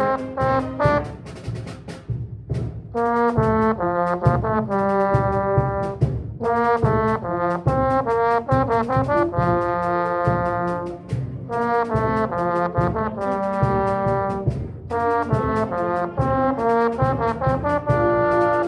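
Trombone playing the first trombone part of a concert-band fanfare: runs of short, tongued notes alternating with longer held notes, with brief breaks for breath.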